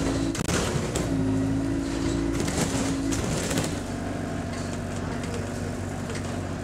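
Euro 5 Alexander Dennis Enviro200 bus's diesel engine and Allison automatic gearbox heard from inside the saloon, a steady drone running at high idle revs. Its tone drops lower about halfway through, with light interior rattles over it.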